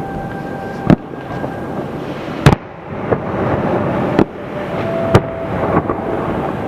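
Aerial fireworks display: four loud shell bursts about a second or more apart, with smaller cracks between them over a continuous rumble and crackle. A steady high tone is held briefly at the start and again about five seconds in.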